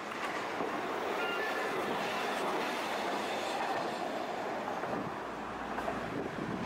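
A Tosaden streetcar passing on the nearer track, its steel wheels running over the rails with a clatter and a brief faint squeal about a second in.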